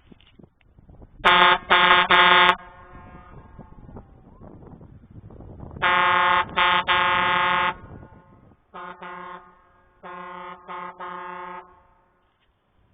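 Home-built air horns, fed from a compressed-air tank, blown in short steady blasts: three quick blasts, then about four seconds later three more, then a shorter single blast and three quieter ones. An echo trails off after each group.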